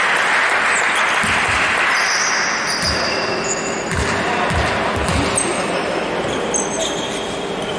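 Basketball bouncing on an indoor court, a series of low thumps at uneven spacing, with short high squeaks and a steady hiss of hall noise.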